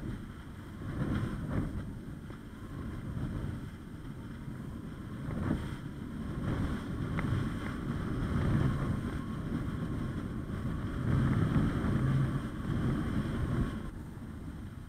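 Wind buffeting the microphone of a camera carried aloft on a kite, a rough rumble that swells and fades in gusts and drops away near the end.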